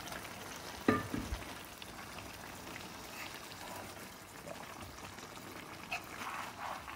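Spiced curry sauce bubbling and sizzling in a steel karahi as chicken pieces on the bone are turned over with a metal ladle. A sharp knock comes about a second in and a lighter click near six seconds.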